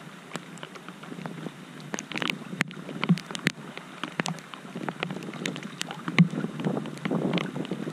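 Shallow floodwater splashing and sloshing as a hand works in it at a curb drain, with many small scattered drips and splashes. The sloshing grows a little louder near the end.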